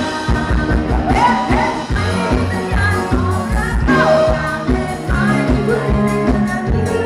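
Live band playing amplified pop-rock music, with a singer over electric guitar and a steady drum beat.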